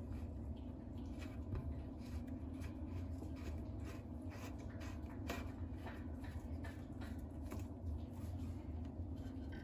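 Hands screwing the black plastic fitting of a braided flexible faucet supply hose onto the wall water outlet: irregular small scrapes and clicks of fingers, threads and hose, over a steady low hum.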